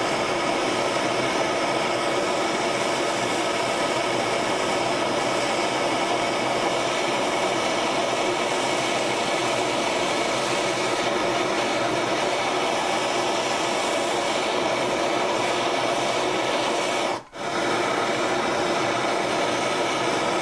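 Handheld gas torch flame hissing steadily as it heats an aluminium joint to melt aluminium brazing rod into it. The sound drops out for a moment near the end, then carries on.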